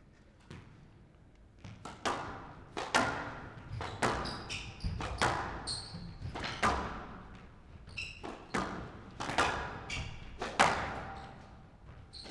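Squash rally: the ball cracking off rackets and the court walls about once a second, with short squeaks of shoes on the court floor.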